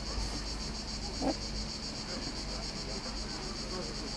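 Cicadas singing in a steady chorus, a fast even pulsing high buzz.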